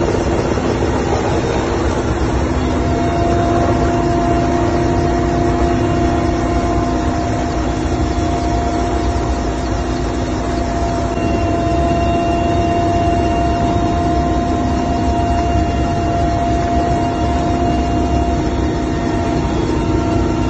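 A military helicopter's engines and rotor running in a hover, heard from inside the cabin with the side door open. It is a loud, steady deep rumble with a few steady humming tones.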